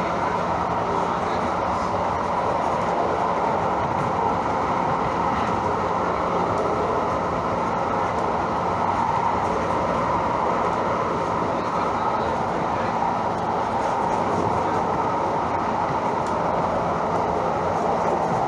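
Calgary CTrain light rail car running along the track: a steady wheel-on-rail rumble and running noise with a constant low hum.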